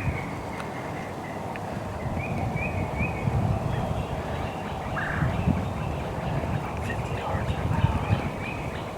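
Wild turkey yelping: two short series of three or four quick notes, with fainter calls later and a low rumbling noise underneath.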